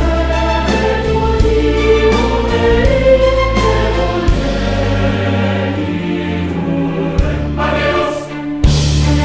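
Choral music: a choir singing over a held bass and a regular beat.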